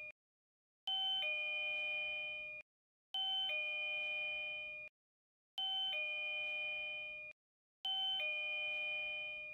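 Wireless doorbell chime sounding a two-note ding-dong, the second note lower than the first, four times about two and a half seconds apart.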